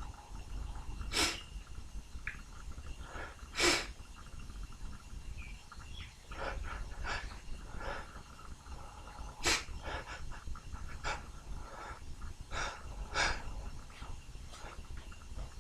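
A man's short sniffs and breaths through the nose during a sneezing fit, about a dozen of them, the loudest about a second in and near four seconds in.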